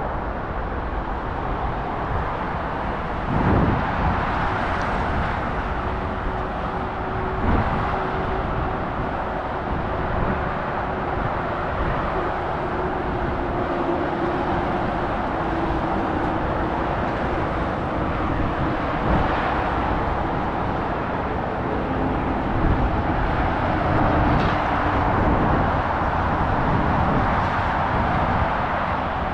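Steady rush of motorway traffic, tyres and engines, swelling a little as individual vehicles pass. There are two brief low thumps in the first eight seconds and a faint hum that slowly falls in pitch through the middle.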